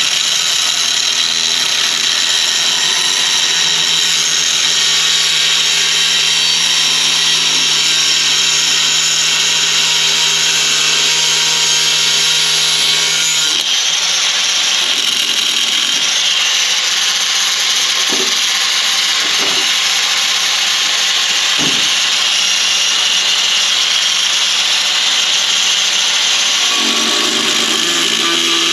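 A power tool running continuously under load on metal: a steady motor hum under a loud, harsh hiss. The motor note shifts about halfway through, and there are a few short knocks in the second half.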